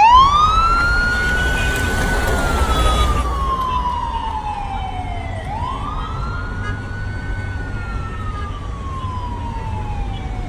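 Police siren starting suddenly and wailing slowly: it climbs to a high pitch, holds for a couple of seconds, then falls over several seconds, twice, with a low rumble underneath.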